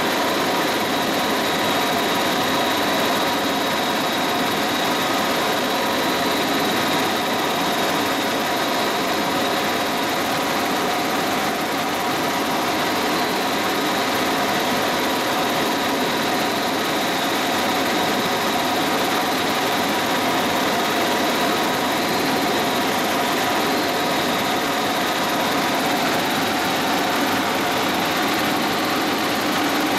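Helicopter cabin noise in cruise flight: the engine and rotor drone steadily, with a faint high whine on top.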